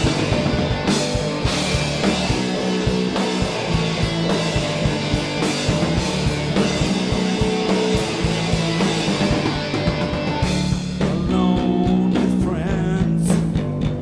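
Live rock band playing loud: distorted electric guitars over a drum kit, with a man's voice singing from about eleven seconds in.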